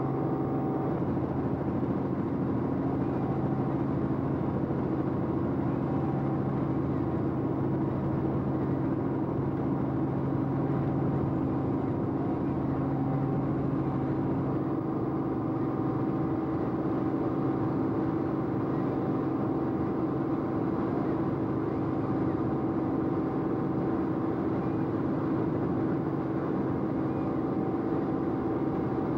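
Aircraft engine drone, steady and unchanging, with several steady humming tones.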